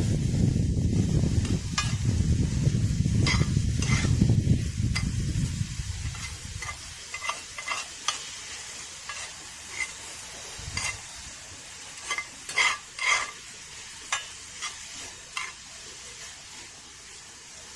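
Outdoor cooking sounds: a low rushing rumble that fades away about six seconds in, with scattered sharp clicks and clinks of utensils on cookware throughout, a few louder ones near the middle.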